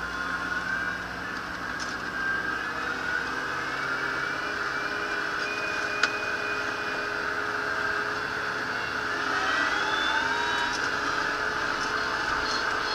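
Kubota Grand L5740 tractor's diesel engine running steadily, rising in pitch as it revs up about nine seconds in. There is a single sharp click about six seconds in.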